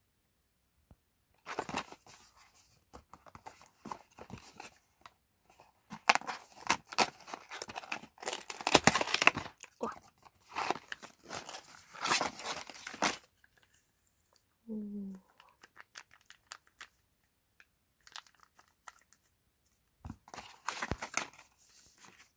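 Paperboard box and foil stick pouches being handled: rustling, crinkling and tearing packaging as the box is opened and the pouches pulled out, busiest for the first half, then again briefly near the end.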